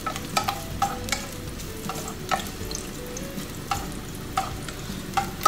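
Garlic sizzling as it is sautéed in olive oil in a saucepan, while a utensil stirring it taps and scrapes against the pan about eight times at uneven intervals.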